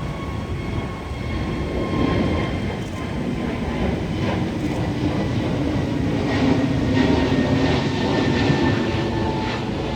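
Boeing 737 MAX 8 jet engines passing close by: a steady rumble with whining tones that slide slowly lower, growing louder through the middle and late part.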